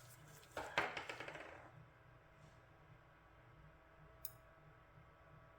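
A small metal object clattering onto a hard work surface: a quick run of ringing bounces about half a second in that dies away within a second, then a single sharp tick about four seconds in.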